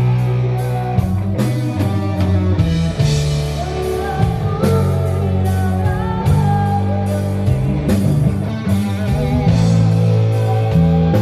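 Live rock band playing at a sound check: electric guitar over a heavy bass line with drum-kit hits keeping a steady beat.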